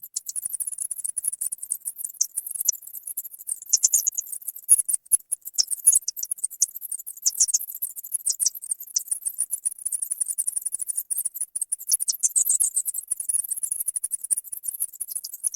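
Bats squeaking and chittering: a dense, continuous stream of rapid, very high-pitched chirps, with a few calls that sweep lower in pitch.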